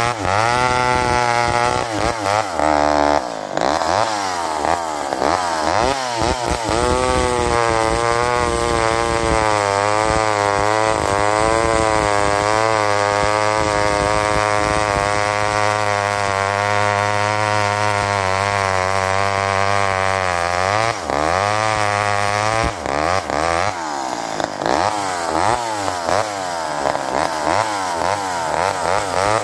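McCulloch 10-10 Automatic two-stroke chainsaw cutting through a large log, running loud throughout, its engine pitch rising and falling as it works in the cut. There are quicker surges of revs a few seconds in and again a little past the middle.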